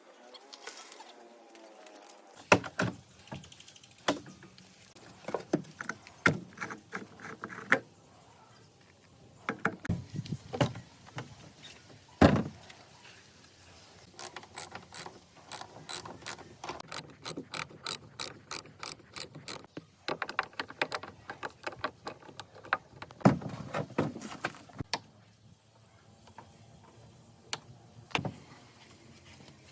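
Hand tools working on old car parts: irregular sharp metallic clicks and knocks, with a quick run of evenly spaced ratchet-like ticks about two-thirds of the way through.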